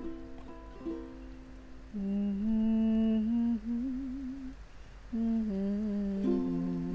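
A voice humming the melody of a keroncong song in long held notes with a wavering vibrato, over plucked ukulele chords.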